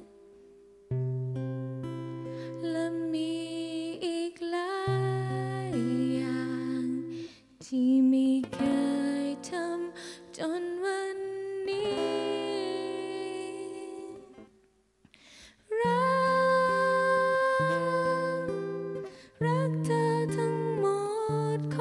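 A young female voice singing a slow melody over an acoustic guitar. The music pauses briefly just after the start and again about fifteen seconds in.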